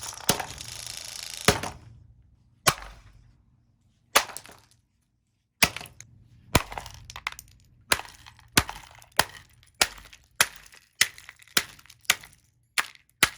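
Comfort Zone table fan being smashed apart: a crunching crackle of breaking parts, then repeated sharp cracking blows, a second or more apart at first and then coming steadily, under two a second.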